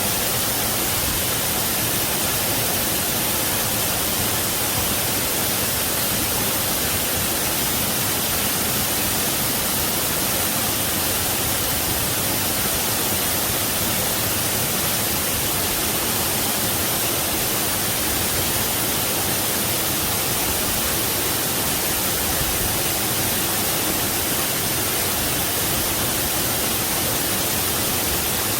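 Waterfall: a steady, even rush of falling water, with no change in level and no other events.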